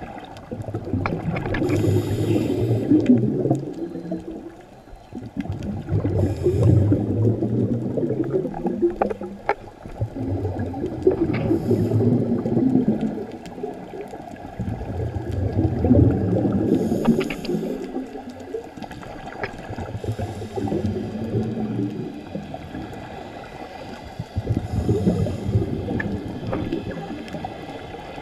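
Scuba regulator breathing heard underwater: the diver's exhaled bubbles rumble and gurgle in slow, regular breaths about every four to five seconds, with quieter gaps and short hisses of inhalation between them.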